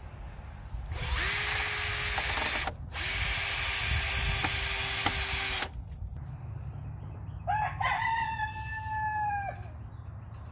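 Cordless drill boring pilot holes into the end of a treated 2x4, in two runs of about one and a half and three seconds with a short stop between, so the long screws don't split the wood. Near the end a rooster crows once, for about two seconds.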